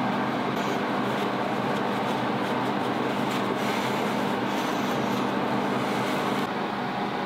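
Steady machine drone with a low hum. It drops slightly in level and changes about six and a half seconds in.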